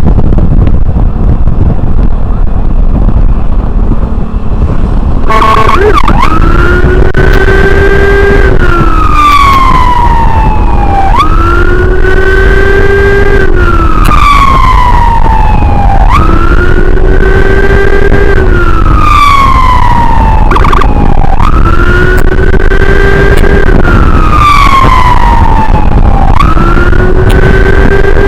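Emergency siren of an ambulance escort, switched on about five seconds in and then wailing in a repeating cycle every five seconds or so: a quick rise, a short high hold, then a slow falling glide. Heavy wind rumble on a motorcycle-mounted microphone runs underneath.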